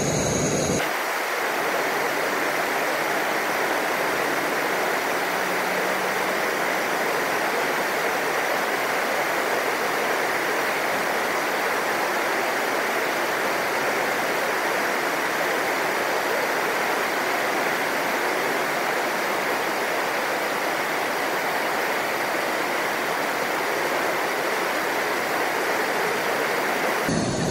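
Steady rushing hiss of an MSR WhisperLite liquid-fuel stove burning under a BRS heater attachment, played back fast-forwarded three times. It changes about a second in and then holds unchanged.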